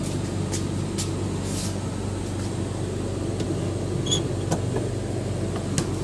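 Steady low machine hum, with a few light clicks and taps and a brief high squeak about four seconds in.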